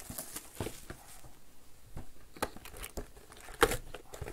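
Plastic shrink wrap being peeled and crumpled off a trading-card box: irregular crinkling and tearing, with a few sharp crackles, the loudest about three and a half seconds in.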